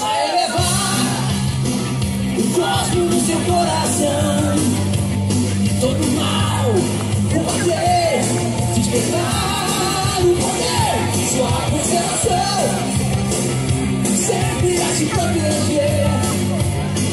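Rock song with a singing voice playing steadily over loudspeakers.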